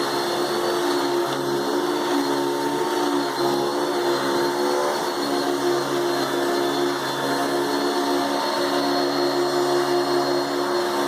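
Hoover Dimension 1000 canister vacuum cleaner with its power nozzle running on carpet: a steady motor hum over airflow hiss, its pitch wavering slightly.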